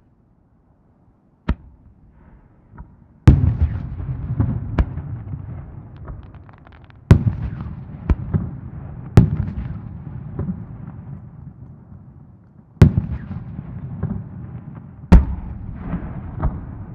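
Aerial firework shells bursting: after a near-quiet start, a string of about nine sharp bangs at uneven intervals, each followed by a long low echo that dies away.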